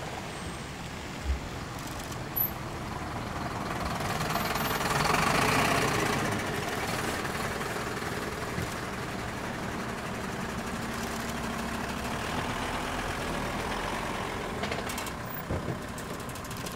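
Truck engines running at low speed, growing louder for a few seconds around the five-second mark as a vehicle moves close, with two short knocks in the first few seconds.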